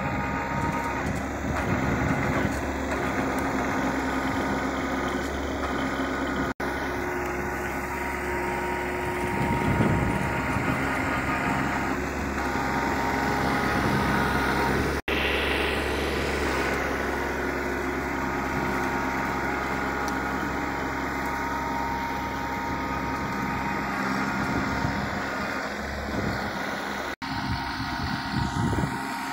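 Kubota NeoStar 21 HP compact tractor's diesel engine running steadily under load as it pulls a ridging implement through the soil. The sound breaks off for an instant three times.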